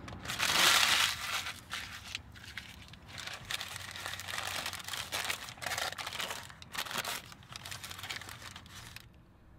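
Paper taco wrapper and paper bag crinkling and rustling as they are handled and unwrapped. The loudest crinkle comes about half a second in, then irregular rustles follow until they stop near the end.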